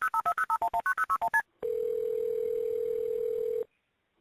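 Telephone keypad touch-tones: a quick run of about a dozen dialing beeps. Then a single steady ring tone on the line for about two seconds, cut off sharply.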